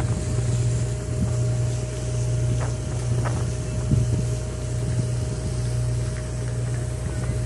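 Steady low hum of a large docked ship's engines, with a thin steady higher tone running through it and wind on the microphone.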